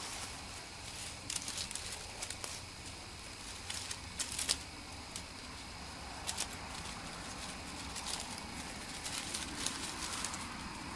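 Scattered light crackles and clicks at irregular times, a small cluster about four seconds in, over a steady outdoor hiss.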